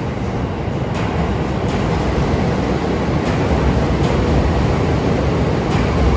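A JR Hokkaido local electric train pulling out beside the platform: a low rumble of wheels on rails that grows a little louder, broken by about half a dozen uneven clacks as the wheels cross rail joints and points.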